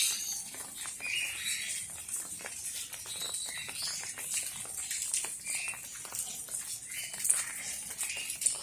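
Rain pattering, with many individual drops ticking sharply over a steady hiss.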